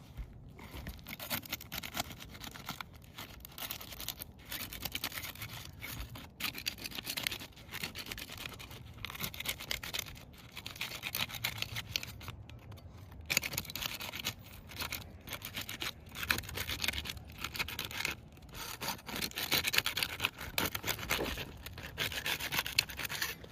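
Asphalt shingles being worked apart by hand and tool, to check whether their sealant strips are adhered: irregular gritty scraping, rubbing and crackling that comes and goes in stretches.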